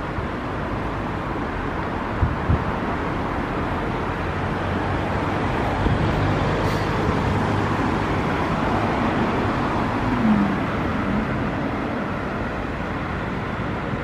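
Steady city street traffic noise, with cars passing on the road. Two short thumps come a little over two seconds in.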